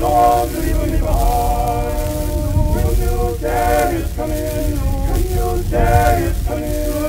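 Archival recording of a group of voices singing a spiritual unaccompanied, with held notes changing every second or so, over a steady low rumble.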